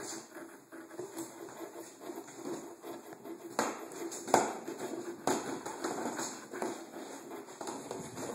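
Irregular knocks, taps and scratching on a cardboard box, with a few sharper knocks in the middle; the loudest comes about four seconds in.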